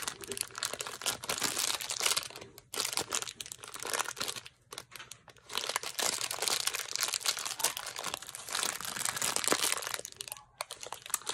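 Foil blind bag of a Funko mystery mini crinkling as it is worked and torn open by hand and the figure pulled out. The crinkling comes in several spells with short pauses between them.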